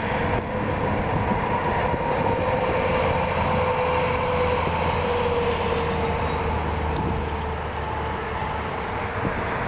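Steady highway traffic noise with a low rumble and a tyre whine from a passing tractor-trailer rig, the whine dropping slightly in pitch about halfway through as the truck goes by.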